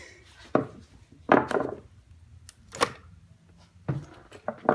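Sharp hard clicks and knocks, about five spread out, of a CPU cooler's mounting bracket being pushed and snapped into its retention slots on the motherboard.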